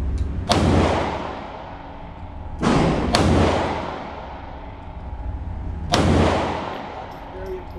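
Three pistol shots a few seconds apart, each ringing out with a long echo in the range.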